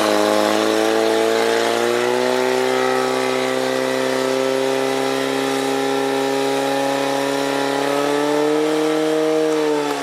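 Portable fire pump's petrol engine running flat out, pumping water through the hoses at high revs. It holds a steady pitch and lifts slightly near the end.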